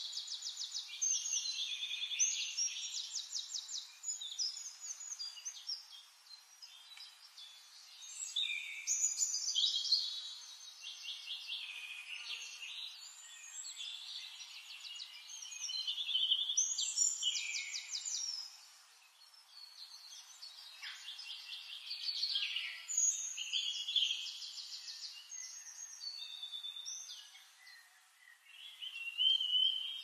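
Songbirds singing in a forest: overlapping high-pitched phrases of fast trills and chirps, a new phrase every few seconds with short pauses between.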